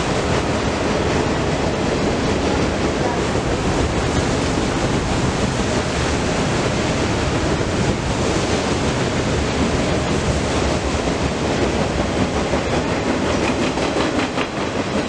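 Freight train of autorack cars rolling by below, a steady rumble and rush of steel wheels on rail, with regular wheel clicks over the rail joints coming through near the end.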